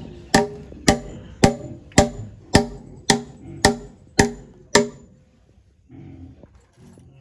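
Steady hammering, about two blows a second, each blow ringing briefly. The blows stop about five seconds in.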